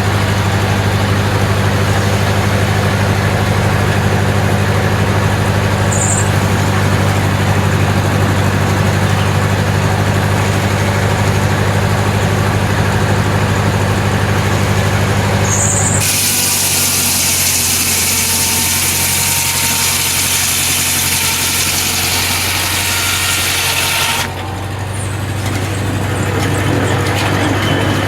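An engine running steadily at a constant speed. About halfway through, a loud hiss suddenly takes over for about eight seconds while the engine's low hum drops back, then the hum returns.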